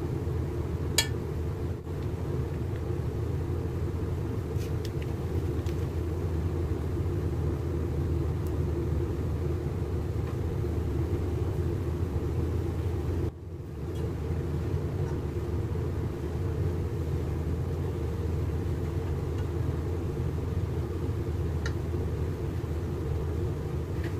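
Steady low background rumble with no clear pitch, with a single sharp click about a second in and a brief dip around the middle.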